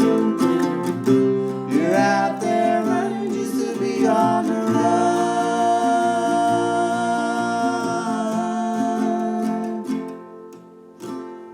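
Northfield flat-top octave mandolin strumming the closing bars of the song. A final chord rings out and dies away, with one last short strum near the end.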